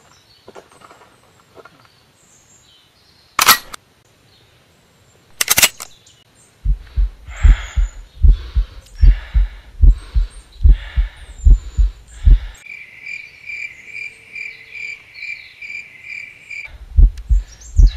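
Two loud, sharp cracks a few seconds apart, then a heartbeat sound effect: low double thumps repeating a little more than once a second. The thumps pause for a few seconds while a high pulsing beep plays, then start again near the end. Faint bird chirps sound high above.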